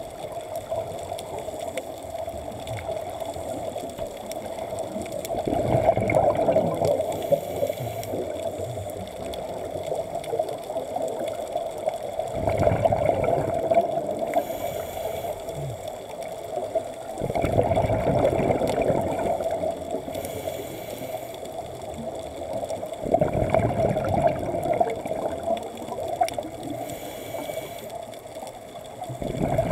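Scuba divers' exhaled bubbles bubbling and crackling out of the regulator underwater, in five bursts about every five to six seconds, one per breath, over a steady underwater hum.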